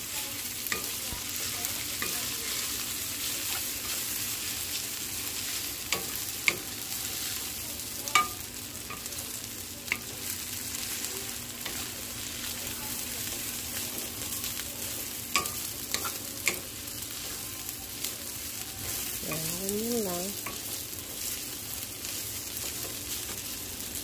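Yakisoba noodles, cabbage and carrot sizzling in a hot frying pan as they are stirred and tossed with a wooden spatula: a steady frying hiss with occasional sharp taps of the spatula against the pan.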